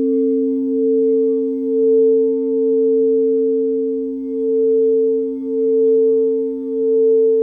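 Singing bowl ringing on and on, with a steady low tone under a higher tone that swells and dips about once a second.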